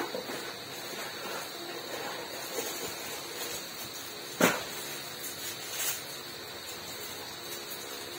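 Steady room hiss with a few scattered knocks and clicks, the sharpest one about halfway through.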